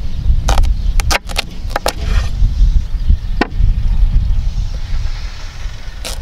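Knife slicing through a thick-skinned banana squash: a run of short crunching, scraping strokes in the first two seconds, a sharp knock of the blade reaching the wooden cutting board about three and a half seconds in, and more soft scraping as the next cut starts. A steady low rumble runs underneath.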